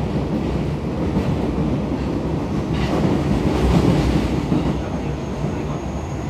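Interior running noise of an Osaka Metro 22 series subway car at speed, a refurbished car with loud running sound: a steady rumble of wheels on rail, swelling into a louder rush about three to four seconds in. A faint high steady whine comes in near the end.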